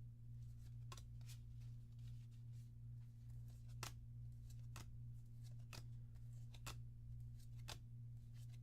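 Force of Will trading cards being flipped through one at a time, a faint sharp snap of card on card about once a second, over a steady low electrical hum.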